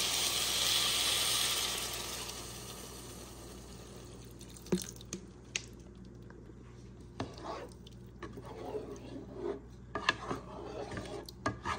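Water poured into a hot pot of rice frying in butter, hissing loudly for the first two seconds and then dying down to a quiet simmer. A few light clicks and knocks of a utensil or pot follow later.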